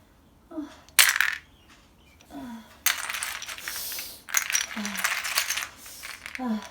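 Small hard plastic toys clattering and knocking against each other as bare feet tread on them and shift them about, with a sharp clack about a second in and denser clattering in the second half. Several short low pained grunts are heard between the clatters.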